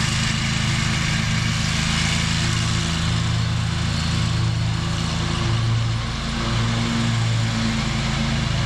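An engine running steadily at a constant load, its pitch wavering slightly now and then.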